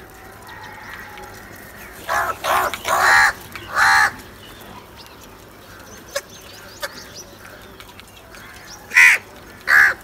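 House crows cawing: a run of several harsh caws about two seconds in, then two more near the end.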